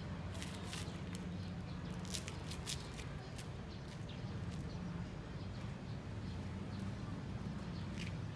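Outdoor ambience: a steady low hum under scattered short, sharp, high ticks.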